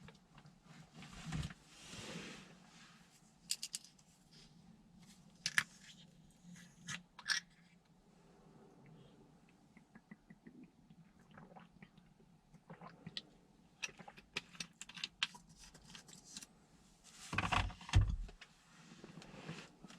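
Faint room ambience: a low steady hum with scattered small clicks, taps and rustles, and a louder burst of rustling and knocking near the end.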